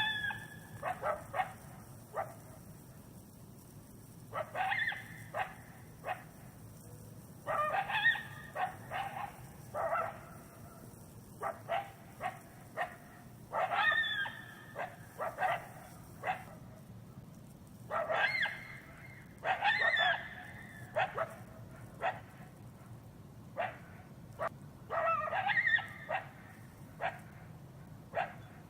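An animal calling in repeated bouts every few seconds: each bout is a drawn-out pitched call followed by a run of short, sharp calls like barks or yips.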